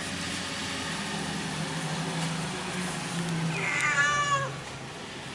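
A domestic cat meows once, a single call falling in pitch, about three and a half seconds in, over a low steady hum.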